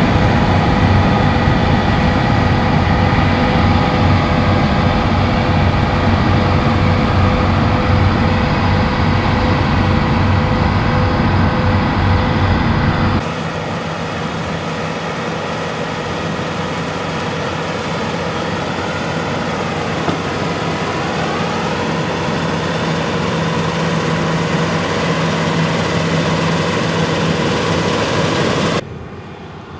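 Claas Lexion 8900 combine harvester running at work, a steady machine hum with whining tones from its engine and threshing gear. The sound changes abruptly about 13 s in, becoming quieter and thinner, and drops again near the end.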